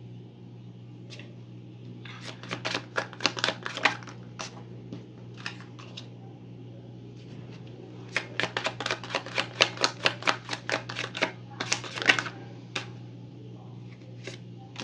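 A tarot deck being shuffled by hand: quick runs of sharp card clicks and flicks, a short run about two seconds in and a longer, denser one from about eight to twelve seconds in, with a few single taps between, over a low steady hum.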